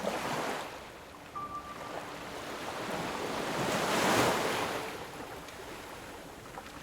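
Ocean surf: a small wave breaks at the start, then a bigger one builds, breaks loudest about four seconds in, and washes back out.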